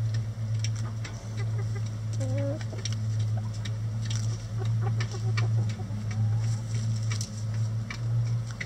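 Hens clucking while they peck at a hanging cabbage, with sharp pecking clicks scattered throughout, over a steady low hum.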